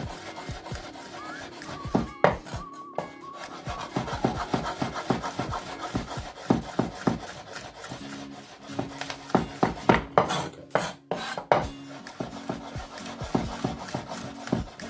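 Chef's knife slicing garlic cloves on a wooden cutting board: a quick, uneven run of knife strokes tapping against the wood, thickest about two-thirds of the way through.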